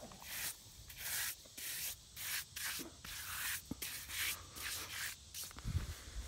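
Dry grass clippings being brushed off a flat granite grave marker: about a dozen quick scratchy brushing strokes, each a short hiss, then a few low bumps near the end.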